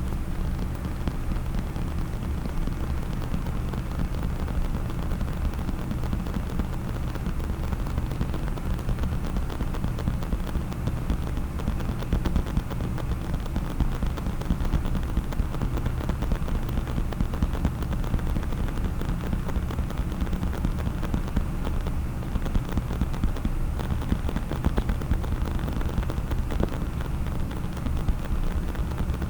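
Fast, unbroken tapping on a case, so dense it runs together into a steady patter.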